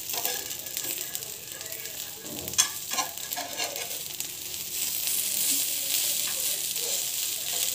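Corn cutlets sizzling in oil on a flat pan: a steady frying hiss that grows a little louder about five seconds in. There are a couple of light knocks near the middle.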